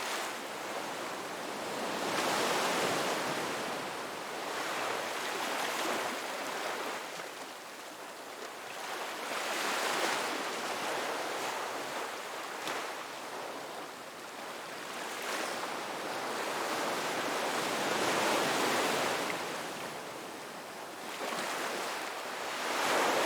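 Ocean waves breaking on a beach, the surf swelling and ebbing in slow washes every few seconds.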